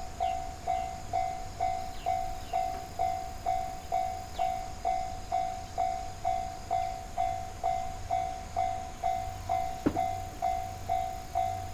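Japanese level crossing warning alarm ringing steadily, a two-tone ding repeating about twice a second, signalling that a train is approaching or passing. A single sharp click sounds near the end.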